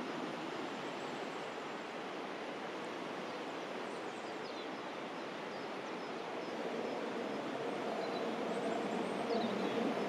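Steady rushing background noise, with the sound of a Rhätische Bahn metre-gauge train coming onto a stone viaduct growing louder over the last few seconds.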